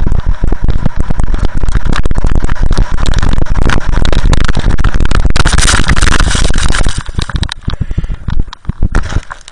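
Wind buffeting and snow scraping on an action camera sliding fast down a snowy slope: a loud crackling rumble that swells into a brighter hiss about two thirds through, then breaks up into scattered knocks as the camera tips over.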